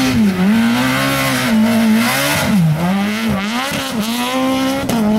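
BMW Compact rally car's engine revving hard at high load, its pitch dropping and climbing again several times as the driver lifts and shifts gear while the car slides across loose dirt.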